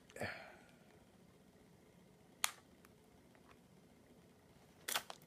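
Packaging being worked at by hand to free a part: mostly quiet, with one sharp click about halfway through, a few faint ticks after it, and a short scuffing sound near the end.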